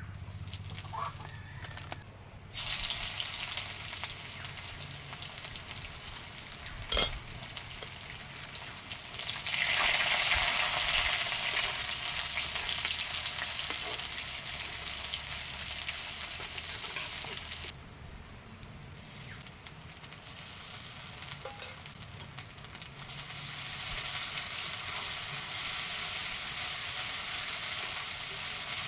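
Food frying in hot oil in a pan, a steady sizzling hiss that starts about two and a half seconds in and grows louder for a stretch. It drops away for a few seconds after the middle and then builds again. One sharp knock comes about seven seconds in.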